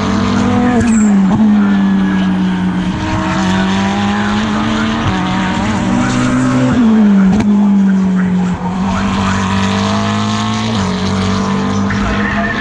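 GT3 race car engine heard onboard at racing speed, pulling hard through the gears. Its pitch drops sharply twice, about a second in and again about seven seconds in, as it brakes and downshifts, then climbs again.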